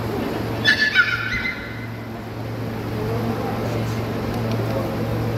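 Large indoor hall ambience: a steady low hum with faint distant talk, broken about a second in by two or three short, sharp, high-pitched squeaks.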